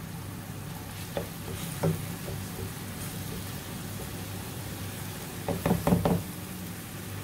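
Black spatula knocking against a dark nonstick pan while stirring dal into bubbling water and masala: a few single knocks, then a quick run of louder knocks about six seconds in, over a steady low hum and the simmer of the liquid.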